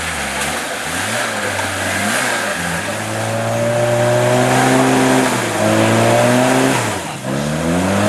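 Off-road trial car's engine revving hard, its pitch rising and falling several times, held high for a few seconds mid-way, then dropping sharply about seven seconds in and revving up again.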